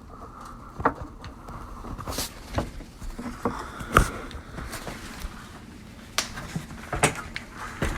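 Irregular footsteps and knocks of someone walking through a house, with clicks from the handheld phone being moved. The loudest knocks come about four seconds in and around seven seconds in.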